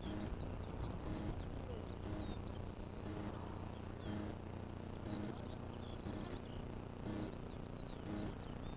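An insect chirping in short high hissy bursts about once a second, with small bird chirps and a steady low rumble of wind on the microphone.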